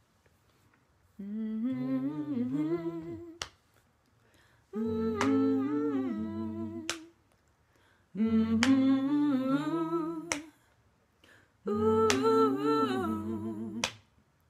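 Voices humming a wordless a cappella phrase four times, each phrase about two seconds long with a pause between. A finger snap falls at the end of each phrase.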